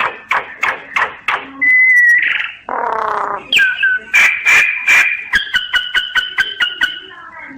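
Myna (sáo nghệ) singing: a varied run of sharp clicking notes, clear whistles and a harsh squawk, ending in a rapid series of about six notes a second.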